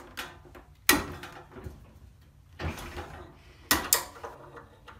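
Locking pliers being worked on a workpiece: four sharp clicks, one about a second in, one midway and a close pair near the end.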